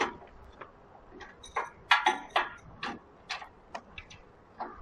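Irregular sharp clicks and taps of metal parts being handled as two drive belts are fitted between an electric motor's pulley and a shaking table's big flywheel, the loudest about two seconds in.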